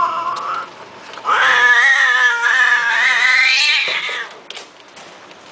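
Long-haired Persian-type cat yowling. A short call comes first, then one long, drawn-out, wavering yowl of about three seconds that rises in pitch just before it stops.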